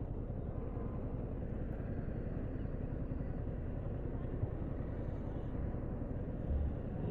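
Yamaha R15 V4's 155 cc single-cylinder engine idling steadily.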